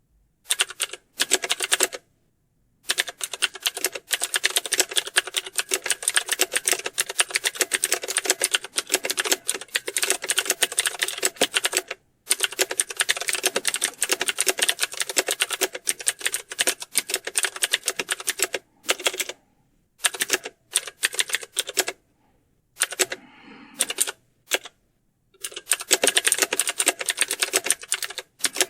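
Fast typing on computer keyboards: dense runs of rapid keystrokes, broken several times by short pauses, as in a typing-test exam hall.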